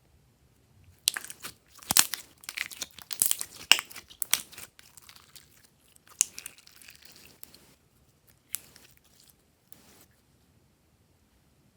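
Glossy slime being worked by hand, with a dense run of sharp crackling pops and crunches in the first half, then a few scattered ones.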